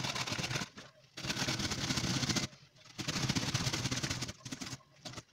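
An onion quarter being grated on the coarse side of a stainless steel box grater: three runs of rapid rasping strokes with short pauses between them, then a few single strokes near the end.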